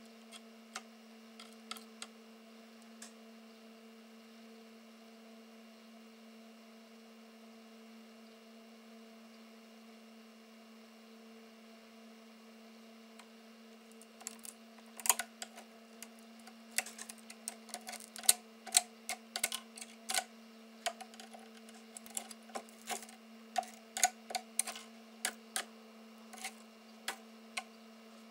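A steady low hum runs throughout. From about halfway, a screwdriver tip taps and scrapes at a chip on a circuit board, prying it loose as the heat softens its solder, in a quick irregular run of sharp clicks.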